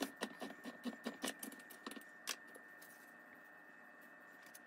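Handheld can opener being cranked around a can's rim: a quick run of small clicks, about five a second, that stops about two seconds in.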